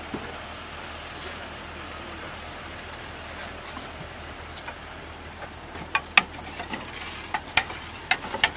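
Steady outdoor background noise, with a quick run of sharp clicks and knocks starting about six seconds in.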